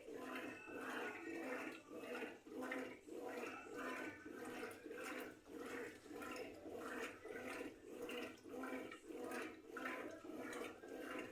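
Consul 9 kg CWB09BB washing machine agitating a load of clothes in water: a regular back-and-forth sloshing, about two strokes a second.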